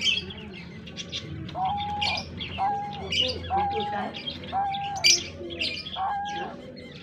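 Several small cage birds chirping over one another, with a short, level-pitched call repeating about once a second from about a second and a half in.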